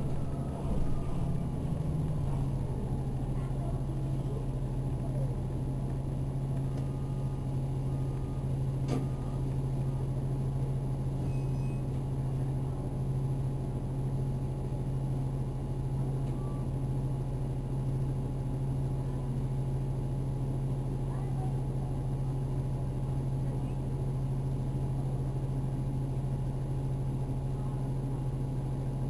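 Onboard an Orion VII NG hybrid transit bus as it slows to a stop. A whine from the drive falls in pitch over the first few seconds, then a steady low hum runs on while the bus stands.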